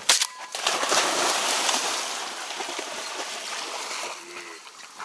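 A shotgun shot fired at a flying duck right at the start, followed by about three seconds of hissing noise that slowly fades.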